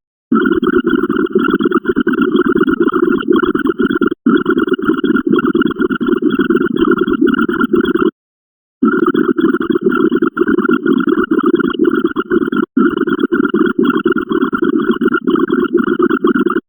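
A rapid, unbroken stream of short sound effects, one for each binary count, running together into a dense rumbling buzz. It breaks off briefly a few times and falls silent for under a second about eight seconds in.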